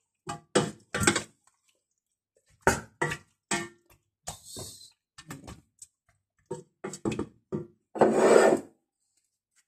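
Wooden spoon stirring in a stainless steel cooking pot, knocking against the pot in a string of short, irregular knocks. A louder scraping noise lasts about half a second, about eight seconds in.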